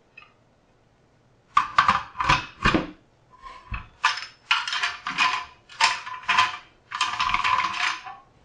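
All-metal hand-crank pasta machine being fitted with its tagliatelle cutting head and having its crank handle moved across: a run of metal-on-metal scrapes, clacks and rattles, with a few dull knocks against the counter, starting about a second and a half in.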